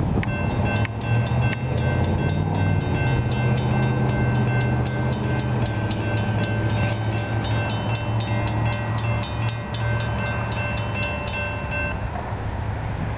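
Railroad grade-crossing warning bells ringing in rapid, even strokes while the gates come down, stopping about a second before the end. Underneath is a steady low rumble of strong wind buffeting the microphone.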